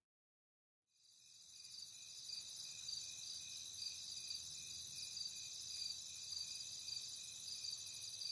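Faint chorus of crickets chirring in a steady, high-pitched pulsing trill, coming in about a second in.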